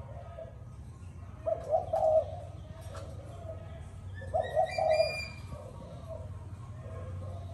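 Dove cooing in low, soft phrases, with two louder cooing bouts, one about a second and a half in and one just past the middle, and quieter coos between them.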